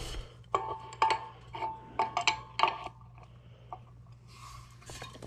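A wrench working the set screw on the hub of a sheet-metal squirrel-cage blower wheel, loosening it to free the motor shaft: a string of irregular sharp metallic clicks, some with a short ring from the wheel, for the first few seconds, then quieter.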